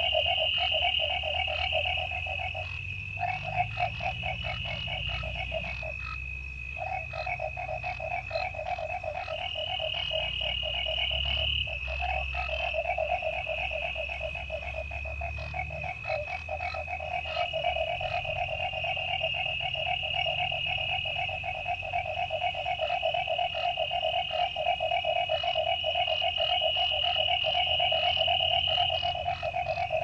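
Night chorus of frogs trilling in fast pulses, breaking off briefly a few times, over a steady high-pitched chirring of crickets.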